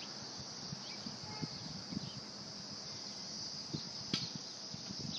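Outdoor ambience: a steady high-pitched drone with a few faint short chirps and light low bumps.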